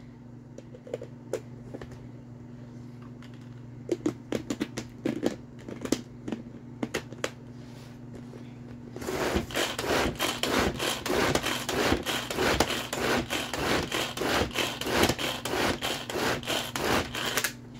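Tupperware SuperSonic pull-cord chopper: a few plastic clicks as the lid is fitted and snapped onto the bowl, then from about halfway the cord is pulled again and again, the blades whirring and rattling through tomatoes and onion in a fast, steady run of strokes.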